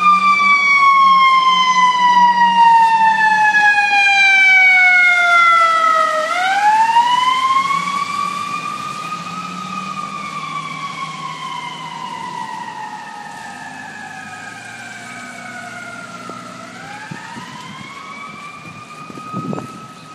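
Mechanical siren wailing: its pitch sinks slowly for several seconds, then winds quickly back up, twice over. It is loud at first and grows fainter through the second half.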